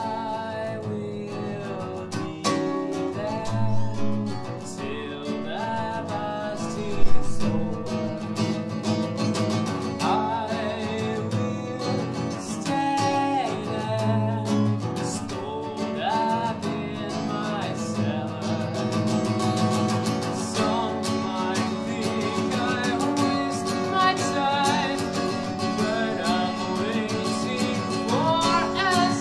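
A man singing over a strummed Takamine acoustic-electric guitar, with one sharp thump about seven seconds in.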